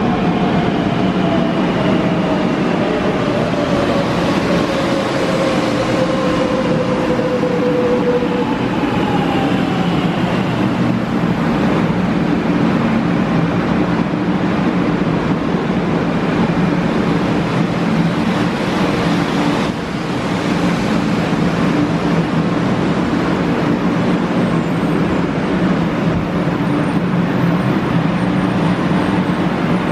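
JR West 500 Series Shinkansen train pulling in and running past. A whine falls in pitch over the first eight seconds or so as the train slows, over a steady rumble of wheels on rail and a low hum.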